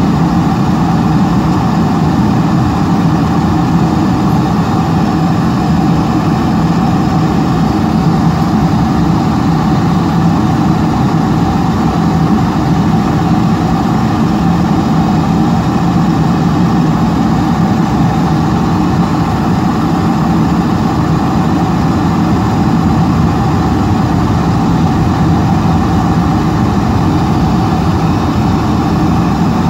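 Steady cabin noise inside a Boeing 747-400 airliner in descent: the even rumble of the jet engines mixed with airflow rushing past the fuselage, unchanging throughout.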